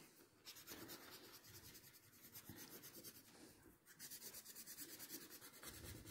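Faint, quick strokes of a hand-held drawing tool rubbing over drawing paper, blending graphite shading, with short pauses about half a second in and near the middle.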